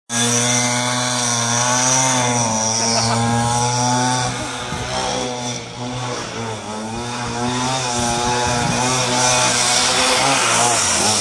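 Pocketbike's small two-stroke engine running hard at high revs, its pitch rising and falling with the throttle as it is ridden around.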